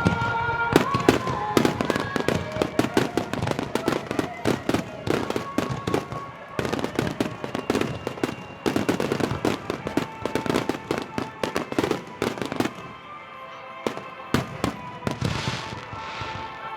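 Fireworks display: a dense run of rapid bangs and crackling bursts, thinning to fewer, scattered bangs about thirteen seconds in.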